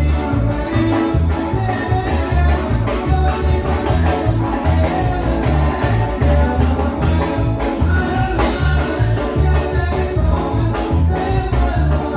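Live band playing Latin dance music on drum kit, electric guitar, bass guitar and Korg keyboard, with a steady, strong bass beat.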